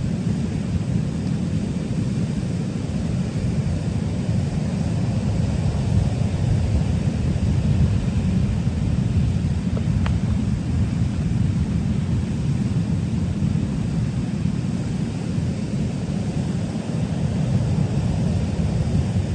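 Wind buffeting the microphone outdoors: a steady low rumble with a faint hiss above it, and a single small click about ten seconds in.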